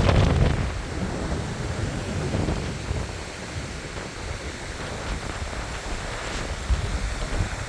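Hurricane Idalia's wind gusting and buffeting the microphone: a steady rushing noise with heavy low thumping, strongest in the first half second and then easing.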